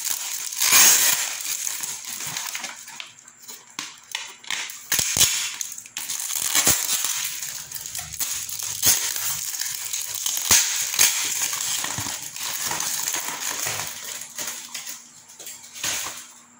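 Plastic bubble wrap and packing tape being handled and pulled off a parcel: continuous crinkling with frequent sharp crackles, easing off near the end.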